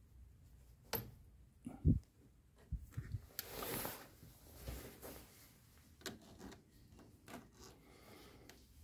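Pliers working spring hose clamps onto the rubber gas hoses of an LPG filter: scattered faint clicks and knocks, the strongest a dull thump about two seconds in, and a short scraping rustle near four seconds.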